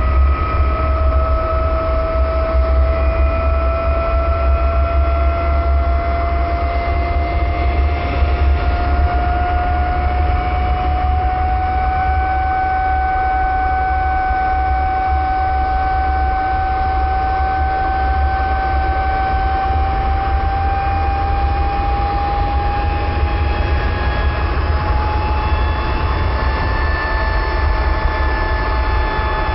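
Brass fidget spinner spinning up: a steady whine that rises slowly in pitch, over a strong, steady deep rumble.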